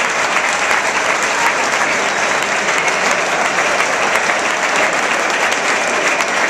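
Large football stadium crowd applauding, a dense, steady wash of clapping from thousands of hands.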